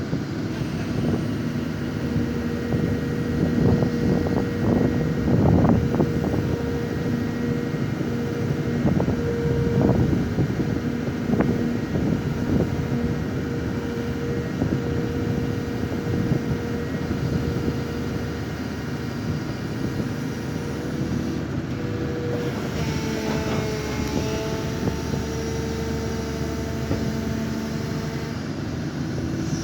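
Hydraulic excavator's diesel engine running under load with a steady whine, while the machine presses bamboo piles into soft clay. Bursts of knocks and thuds come between about four and twelve seconds in, and the whine shifts in pitch near the end as the load changes.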